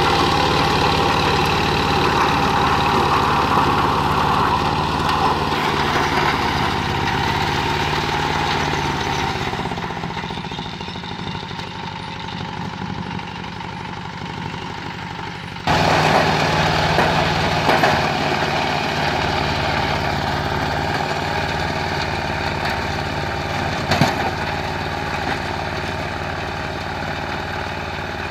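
Zubr 15 hp mini tractor engine running steadily under load, driving a rear-mounted rotary tiller through the soil. The sound drops in level about ten seconds in and jumps back up abruptly partway through.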